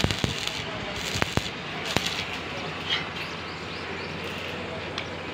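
Sharp metal knocks and clinks, about five in the first two seconds, over a steady low hum and hiss.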